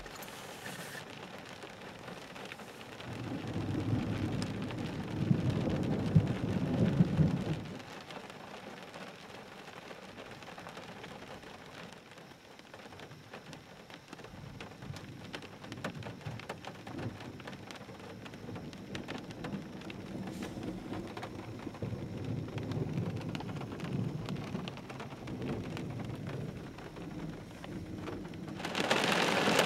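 Thunderstorm: a long roll of thunder rumbles from about three seconds in for some four seconds over steady rain. Fainter thunder rolls later, and near the end the rain suddenly gets much heavier.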